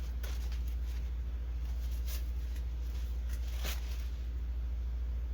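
A steady low hum throughout, with a few brief faint rustles and clicks of something being handled.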